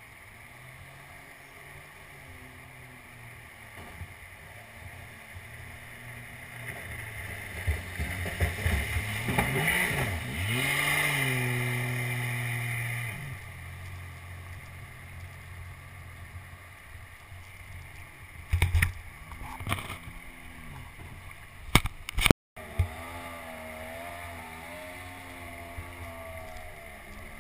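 Mini jet boat's engine running as the boat comes up the river. It gets louder and revs, loudest about ten seconds in, then drops off abruptly a few seconds later. A few sharp knocks come later, followed by a fainter hum that wavers in pitch.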